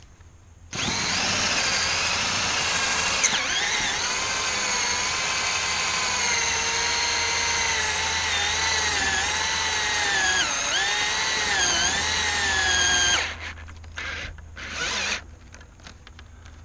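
Cordless drill spinning a homemade hole saw, a steel sleeve with filed teeth, into a weathered wooden fence board to cut around a ring shank nail. A steady motor whine starts just under a second in and dips in pitch several times as the teeth bite. It stops about 13 seconds in, followed by two short bursts of the drill.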